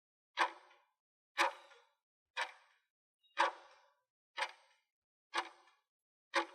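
Clock-tick sound effect of a quiz countdown timer, one sharp tick each second, counting down the time allowed to answer.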